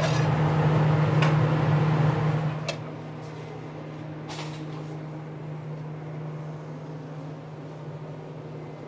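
Steady low machine hum, louder for the first two and a half seconds, then dropping to a quieter level, with a few light clicks.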